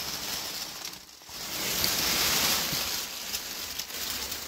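Dry fallen leaves rustling and crunching as a person moves over the leaf-covered floor of a rock den, with a brief lull about a second in.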